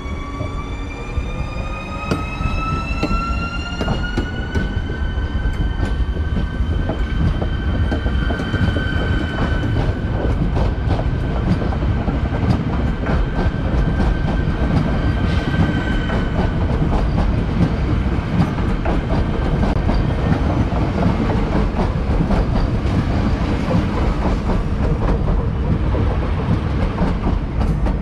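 Electric train accelerating past on the rails. Its traction motors give a whine that rises in pitch for about five seconds, holds steady and fades out around halfway. Under it the wheels rumble and click over rail joints and points, louder as the train goes by.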